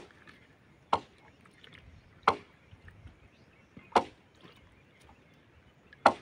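Five sharp knocks at uneven intervals, about one to two seconds apart, each dying away quickly.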